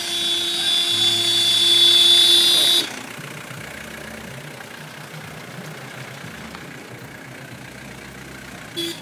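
A car horn blares steadily for about three seconds, then cuts off, leaving cars running. A short honk sounds near the end.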